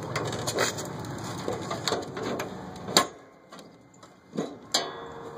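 Ratchet strap being released: a run of quick metallic clicks and rattles, with one sharp clack about three seconds in, then a few scattered knocks.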